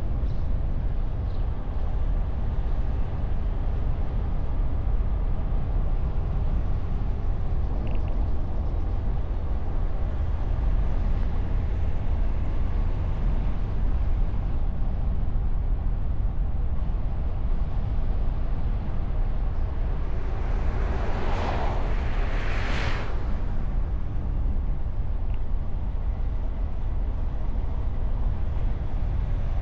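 Steady wind and road rumble picked up on the bonnet of a moving car. About two-thirds of the way through, two quick whooshes a second apart swell and fade: traffic passing close by.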